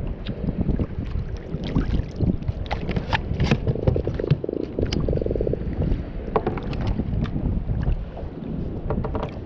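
Wind buffeting the microphone and water lapping around a sit-on-top kayak, with scattered knocks and clicks of fishing gear being handled. Two short rapid rattles come around four and five seconds in.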